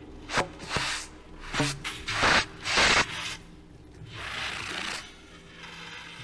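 Contemporary chamber music played with extended techniques: swelling rubbing and scraping noises, a few sharp percussive strikes with short low notes in the first couple of seconds, then a quieter scraping stretch.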